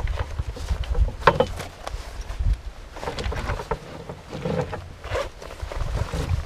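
Wind rumbling on the microphone in an aluminum canoe, with scattered knocks and clinks as a landing net holding a freshly caught fish is handled.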